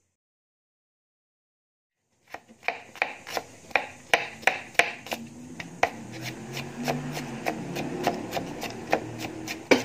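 Kitchen knife chopping onion on a plastic cutting board: quick knocks about three a second, starting about two seconds in after silence.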